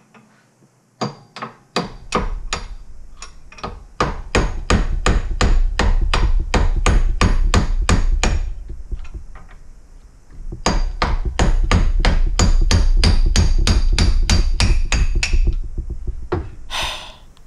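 Hammer striking steel held in a bench vise: fast repeated metal blows, about three to four a second, in two runs with a short pause in the middle. A brief clatter near the end.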